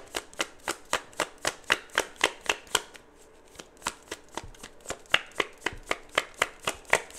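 Tarot cards being shuffled by hand: a steady run of sharp taps and flicks, about four a second, dropping softer for about a second midway before picking up again.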